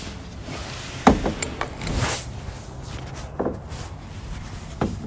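A few dull knocks and bumps, four spread over a few seconds, over a low steady background hiss.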